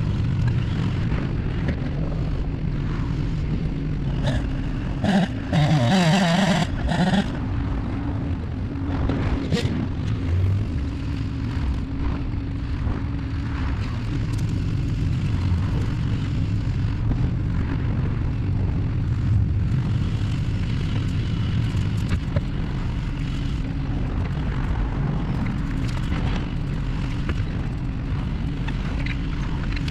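Engine machinery running steadily with a low rumble and a held drone, with a louder, wavering burst about five to seven seconds in.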